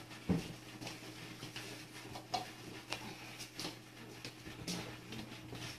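Irregular small clicks and crunches from cats at plates of dry kibble, over a steady low hum.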